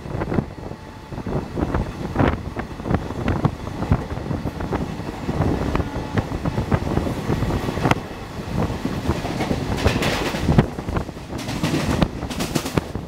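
Express train hauled by a WAP1 electric locomotive passing at speed, its wheels clattering over rail joints in a rapid, irregular clickety-clack. A rushing hiss swells over the last few seconds.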